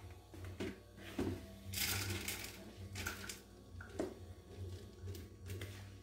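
Crumbly annatto-and-flour mixture tipped and scraped from a plastic bowl into a blender jar: soft rustling with a few light knocks, the loudest rustle about two seconds in.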